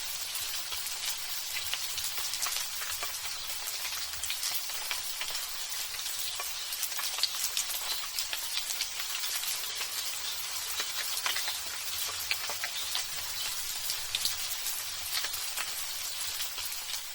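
Steady rain pattering, a dense hiss made of many small drop ticks.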